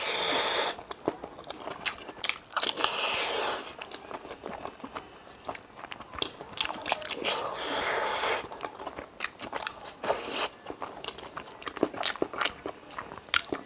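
Close-miked chewing and biting of pork with bamboo shoot: wet mouth clicks throughout, with short crunchy, noisy bursts near the start and about three, eight and ten seconds in.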